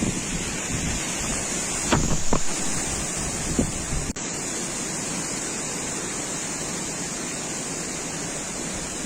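Strong wind rushing and buffeting the microphone, with a few heavier gusts thumping about two seconds in.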